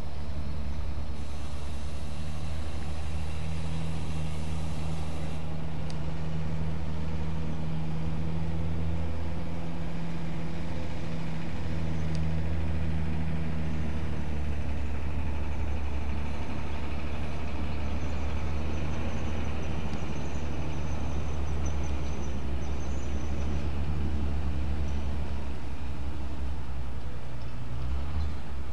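A large engine runs steadily, making a low, even drone that does not change for the whole stretch.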